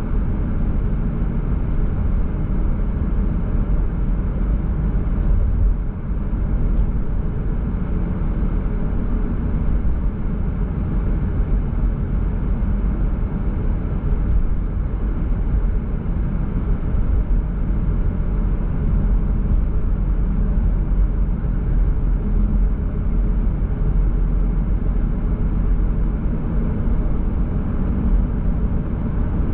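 Car driving along a road at steady speed: a continuous low rumble of tyre and engine noise.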